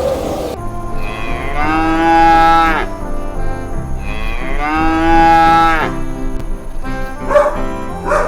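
A cow mooing twice: two long calls of just over a second each, about three seconds apart, each dropping in pitch as it ends.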